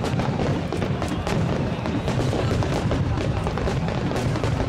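A fireworks barrage: many aerial shells burst in quick succession, giving a dense, unbroken run of bangs and crackling.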